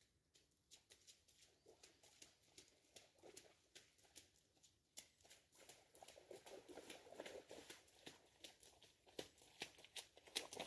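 Footsteps of a trail runner and two dogs on a wet, muddy woodland trail: many quick, irregular footfalls that start faint and grow steadily louder as they come closer.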